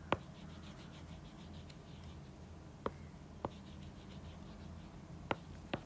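Taps on a tablet's touchscreen: about five sharp clicks, one near the start, two around the middle and two near the end, over a faint low hum.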